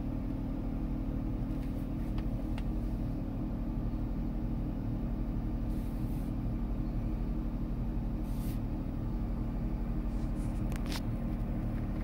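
Car engine idling, heard inside the cabin as a steady low hum, with a few faint clicks around two, eight and eleven seconds in.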